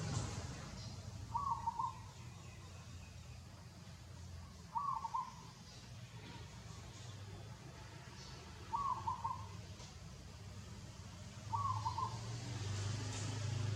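A bird calls four times, a short run of quick notes each time, repeated every three to four seconds, over a low rumble that swells near the end.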